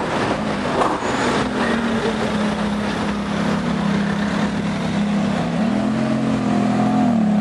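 Ferrari F430 Spider's V8 running at low revs as the car rolls slowly past, its note rising a little about three-quarters of the way in and dropping back near the end, over city traffic noise.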